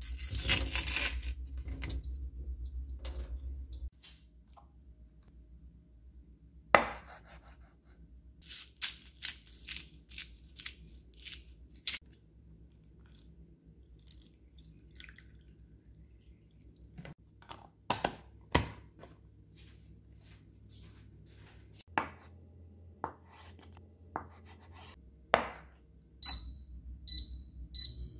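Kitchen handling sounds: a steady rush of noise for the first few seconds at a stainless steel sink, then scattered sharp clicks and knocks of a tofu block, plastic container and utensils being handled. Near the end, an induction cooktop's touch controls give three short high beeps as they are pressed.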